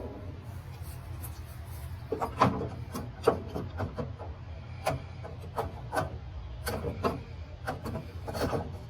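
Steel tool box drawers sliding back in on their runners, with a run of irregular sharp clicks and knocks from about two seconds in, over a steady low hum.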